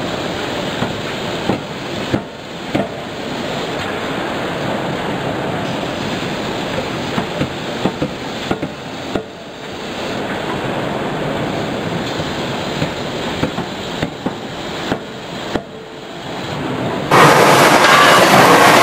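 31.5 kJ CNC hydraulic die forging hammer forging a hot connecting-rod blank, its short sharp blows coming singly and in quick runs over a steady loud factory din. About seventeen seconds in, the sound jumps to a louder, denser din.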